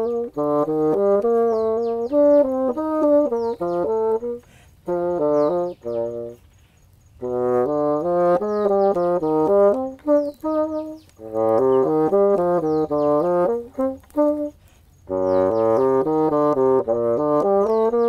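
Solo bassoon playing a melody in quick runs of short, separate notes. It pauses briefly three times between phrases.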